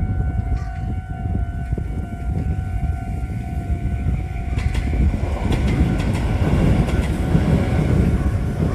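A Meitetsu train passing over a Japanese level crossing: a continuous rumble of wheels on rail, turning to clattering wheel clicks over the rail joints from about four and a half seconds in. The crossing's warning bell rings as a steady tone under it, fading as the clacking starts.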